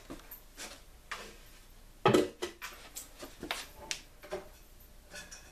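A string of irregular clicks and knocks, the loudest about two seconds in.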